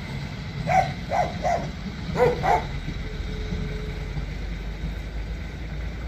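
A dog barks five times in quick succession in the first few seconds. Under it is the low steady rumble of a red diesel railcar moving off down the line.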